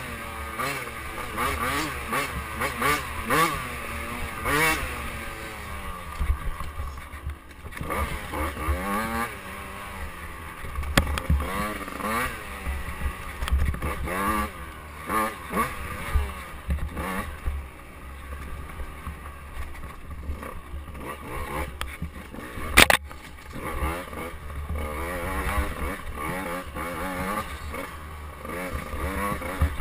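KTM 85cc two-stroke dirt bike engine revving up and down over and over as the rider works the throttle and gears, with wind rumble on the microphone. A single sharp knock about three-quarters of the way through.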